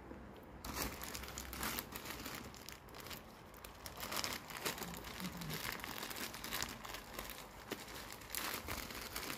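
Faint, irregular crinkling and rustling with scattered small clicks.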